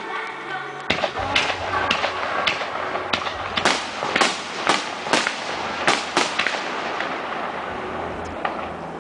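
Fireworks going off: aerial shells launching and bursting in a rapid series of sharp bangs, about a dozen of them from about a second in to around six seconds, followed by a steadier, even rumble.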